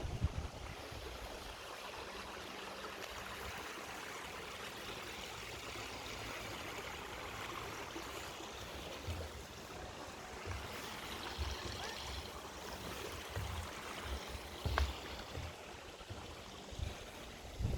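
Mountain stream running steadily, with occasional low wind buffets on the microphone.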